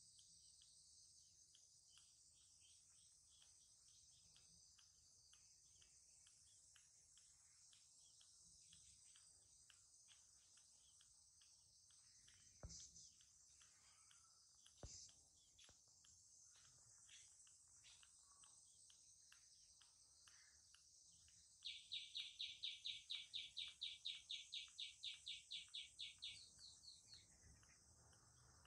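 Faint outdoor insect drone, high and steady, with scattered faint chirps and two soft clicks in the middle. About three-quarters through, a loud run of rapid high chirps starts, about four or five a second for some five seconds.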